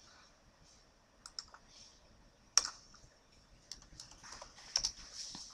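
Scattered clicks of a computer mouse and keyboard as a dimension is placed and a value typed into CAD software. They come as single sharp clicks over a faint hiss, the loudest about two and a half seconds in.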